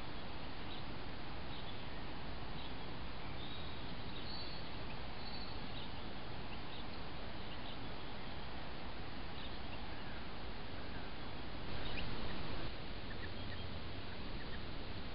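Steady hiss of a trail camera's microphone, with a few faint short high chirps in the first half and a louder rush of noise lasting about a second late on.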